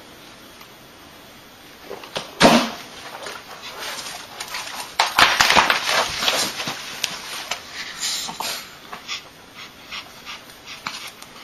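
A small Pomeranian makes small dog noises over rustling and clicking, with a sharp knock about two and a half seconds in.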